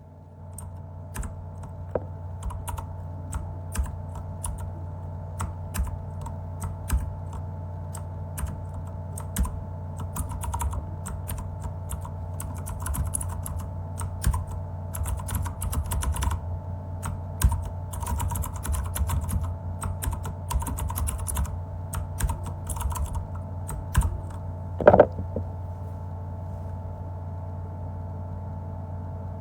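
MageGee mechanical keyboard with clicky blue switches being typed on: irregular keystroke clicks, coming in faster runs in the middle, with one louder knock near the end before the typing stops. A steady low hum runs underneath.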